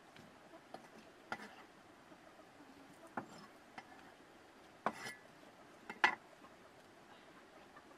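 A handful of light, scattered knocks and clicks from a cleaver and a wooden chopping board being handled. The sharpest knock comes about six seconds in, when the cleaver is laid down on the board.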